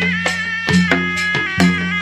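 Traditional Malay silat music: a serunai-type reed pipe plays a held, wavering melody over regular gendang drum strokes and a sustained low hum.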